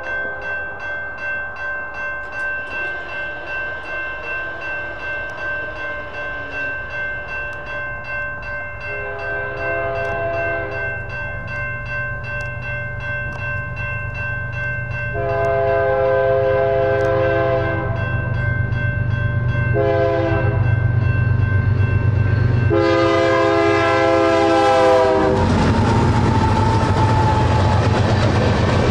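NEG electronic crossing bells ring in rapid, steady strokes while the BNSF freight's locomotive horn sounds the grade-crossing signal: two long blasts, a short one and a long one, over a building rumble. Just after the last blast the freight cars roll through the crossing with a loud, rushing clatter, the bell still ringing.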